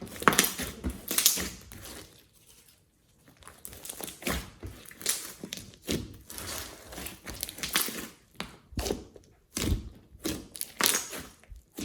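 Slime being squeezed and pressed by hand: a run of irregular crackly squishes and pops, with a short pause about two seconds in.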